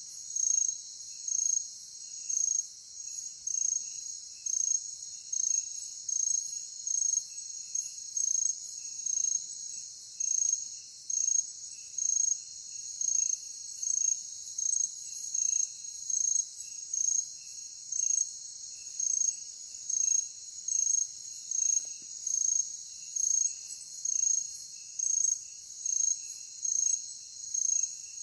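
Night-time insect chorus in a forest: a high, steady trilling, with one loud chirp repeating evenly about one and a half times a second and fainter pulsing calls lower down.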